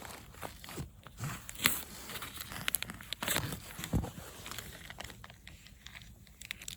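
Intermittent crinkling and light clicks of things being handled by hand, with a few sharper taps, the loudest about four seconds in.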